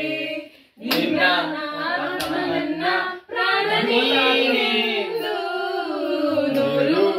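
Several people singing a Kannada song together, with hand claps. The singing breaks off briefly twice.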